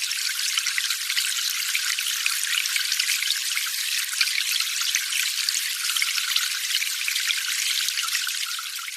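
A steady, dense crackling hiss with no low end. It stops abruptly at the end.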